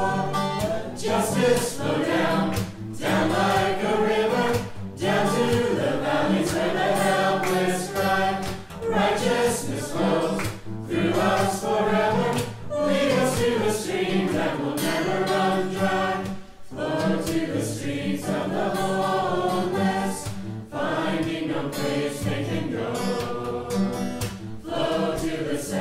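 Background music: a choir singing a gospel-style song over steady low accompaniment.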